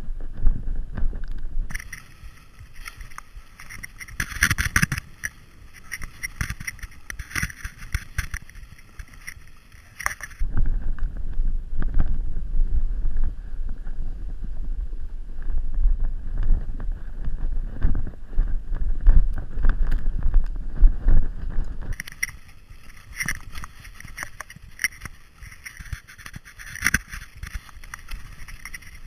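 Mountain bike riding over a rough dirt trail: wind buffeting the camera microphone and the bike rattling over bumps. Twice there is a stretch of high, many-toned buzzing whine: from about two seconds in to about ten, and again from about twenty-two seconds in to the end.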